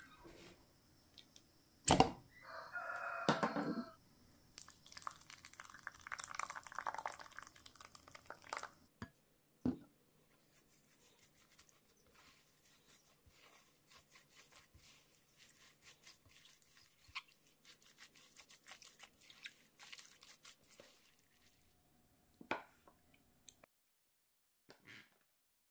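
Rice yogurt poured from a plastic jug into a glass bowl of chopped chives and acorn flour, then a spoon stirring the thick batter with soft scraping and many small clicks. About two seconds in, a sharp knock and a short pitched call.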